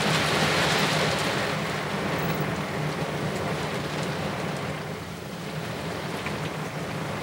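Heavy thunderstorm rain and wind, a steady downpour that is loudest in the first second or two and then eases a little.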